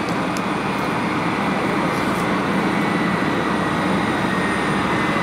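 Airbus A319's IAE V2500 turbofan engines idling on the ground: a steady roar with a high whine that drifts slightly lower.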